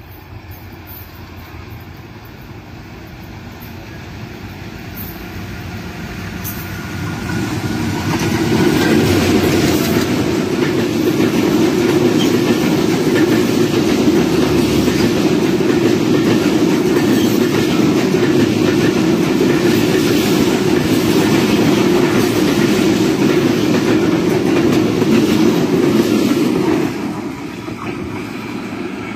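Wheel-and-rail noise of a train running at speed, heard from the open walkway of a diesel locomotive. It grows steadily over the first eight seconds and stays loud while a passenger train passes close alongside on the next track, then drops off suddenly near the end.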